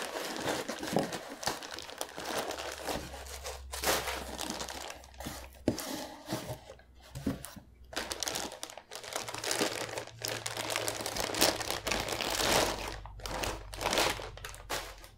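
Clear plastic bag crinkling and rustling in the hands as a round LED grow light is worked out of it, an uneven run of crackles with some sharper, louder ones.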